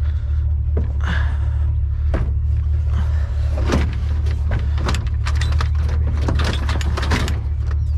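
Truck running with a steady low drone, with frequent sharp clicks and rattles over it.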